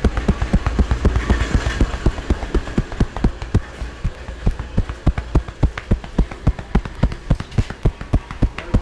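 A barber's hands rapidly and rhythmically tapping a customer's body in a percussive massage, about four or five dull slaps a second.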